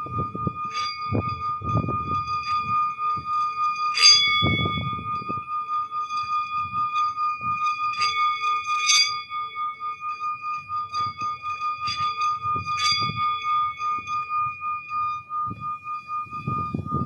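Singing bowl ringing with a steady, pulsing high tone and its overtones, struck again several times with a sharp metallic ring, over low rumbling noises that come and go.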